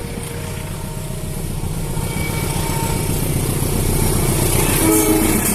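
Diesel locomotive of an approaching train, its low engine rumble growing steadily louder.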